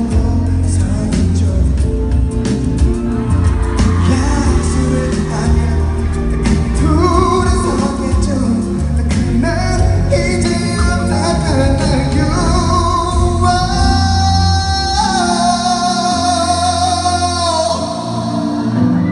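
A male pop singer singing live over loud pop music with a heavy bass beat, holding a long note near the end.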